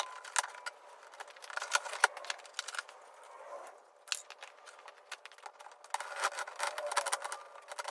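Irregular clicks, scrapes and rubbing as a pickup truck's plastic door trim and tools are handled while the door is taken apart.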